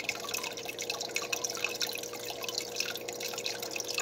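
Aquarium water trickling and dripping at the surface: a constant patter of small drips and splashes, with a steady hum underneath.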